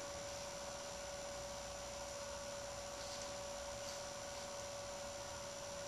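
Faint steady electrical hum, one unchanging tone over a light hiss, with no other sound.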